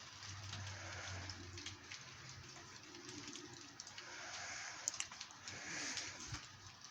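Steady rain falling, with scattered drips ticking and a low hum that fades after the first couple of seconds.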